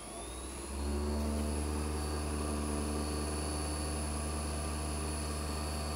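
Surface grinder's inverter-driven spindle motor and grinding wheel spinning up in the first second, then running steadily at about 4500 rpm with a steady hum and a high whine. The wheel is turning free, too fast for grinding.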